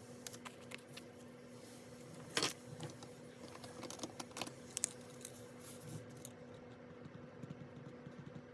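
Scattered small clicks and taps from handling a ring-bound planner and stationery on a desk, with a louder click about two and a half seconds in and another near five seconds. A steady low hum runs underneath.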